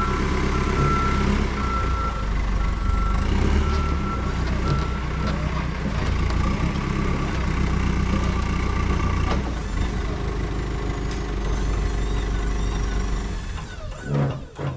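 Heavy diesel equipment engine running hard and steady, with a reversing alarm beeping about once a second for the first five seconds; the engine sound eases off near the end.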